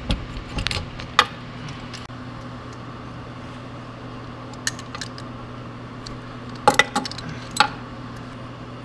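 Metal hand tools clinking against the harmonic balancer puller and crankshaft pulley as the puller, socket and ratchet are fitted: a few sharp clinks scattered through, the loudest a quick cluster near the end. A steady low hum runs underneath.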